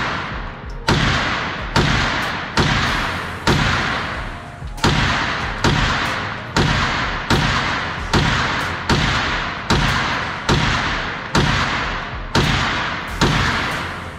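Ruger PC9 9mm pistol-caliber carbine fired semi-automatically in a steady string of about fifteen shots, roughly one every 0.8 seconds, each shot echoing in the indoor range.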